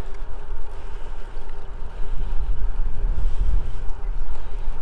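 Wind buffeting the microphone of a camera on a moving bicycle: a loud, low, uneven rumble that surges and drops.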